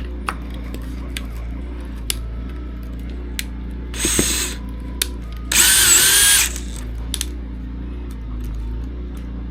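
Power drill with a 3 mm bit boring holes in a 3D-printed plastic battery tray, in two short bursts of high whine. The second burst, about five and a half seconds in, is the louder and lasts about a second. A steady low hum and scattered small clicks sit underneath.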